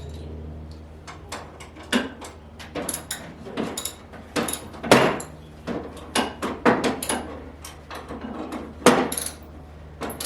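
Irregular knocks, clunks and clatters of hard objects being handled and set down during TV wall-mounting work, about a dozen, with the loudest about halfway through and near the end.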